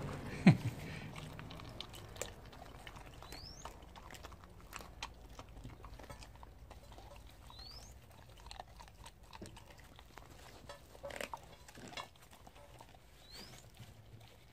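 Jindo dog chewing and crunching raw chicken on the bone: irregular small cracks and clicks, with one loud crack about half a second in.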